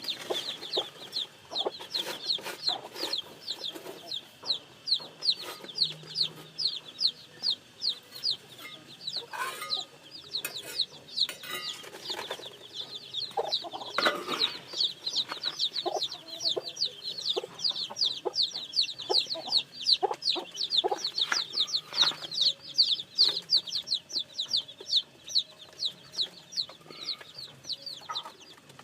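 Newly hatched chicks peeping continuously: a dense run of high, falling cheeps, several a second, with lower short calls now and then.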